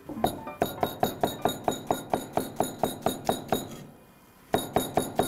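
Chef's knife rapidly chopping an onion on a cutting board, about five even strokes a second, with a short pause about four seconds in before the chopping resumes.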